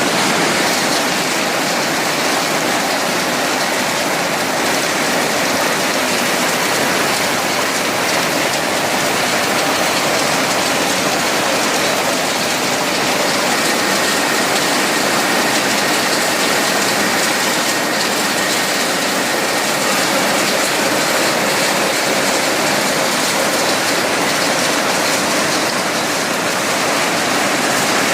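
Automatic cashew nut cutting and shelling machine running, a loud, steady, dense rushing noise with no distinct beat.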